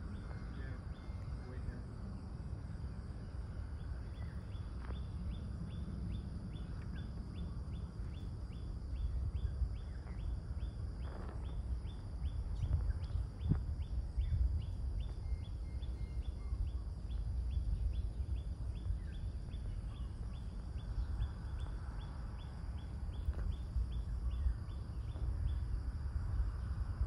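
Outdoor ambience of a steady low rumble, with an insect chirping in a fast, even rhythm through it.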